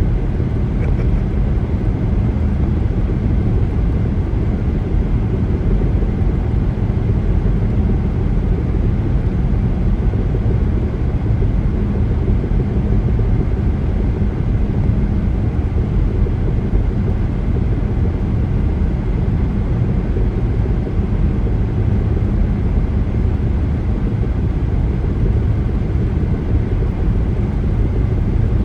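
Car driving at highway speed: steady tyre and engine noise, even in level throughout.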